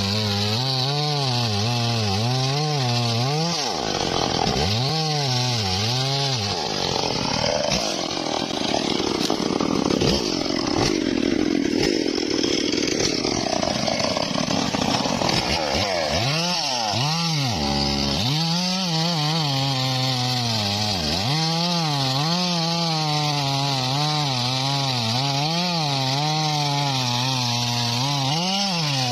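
Homemade bandsaw sawing a teak log. Its machine hum wavers up and down about once a second. From about four seconds in until about sixteen, the hum sags and a rough, noisy cutting sound takes over, before the steady wavering hum returns.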